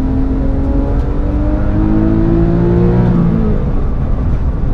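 Porsche 997.1 GT3 RS's naturally aspirated 3.6-litre flat-six accelerating, heard from inside the cabin. The engine's pitch climbs for about three seconds, then drops back and runs on at a lower pitch.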